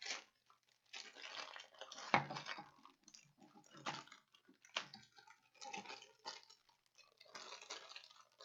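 Plastic toy packaging being handled: irregular crinkling rustles and sharp clicks as the parts of an action figure are taken out.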